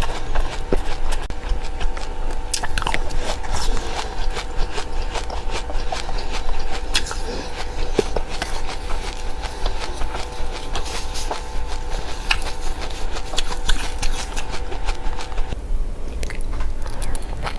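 Close-up chewing and crunching of seeds in the mouth: a dense, irregular run of small crisp crackles.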